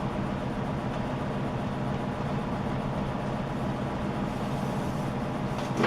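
Steady low mechanical hum with even, unchanging tones, like a motor or fan running, with a brief noisy rustle at the very end.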